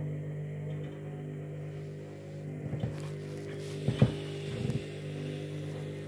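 Candy front-loading washing machine's motor running with a steady hum as the drum turns a load of bedding at low speed during an intermediate spin. Several dull knocks come as the bedding tumbles, the loudest about four seconds in.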